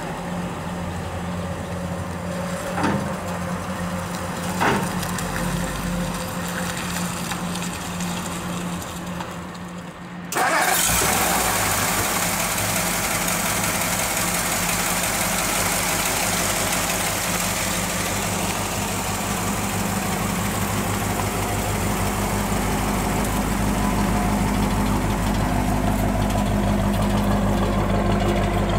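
1957 Ford Fairlane 500's Thunderbird Special V8 idling steadily, with two light knocks in the first few seconds. About ten seconds in the engine sound jumps abruptly louder and closer and stays steady.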